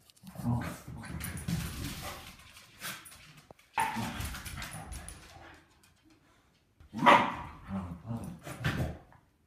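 Two small dogs play-fighting, growling and barking in irregular bursts, the loudest bark just after the middle.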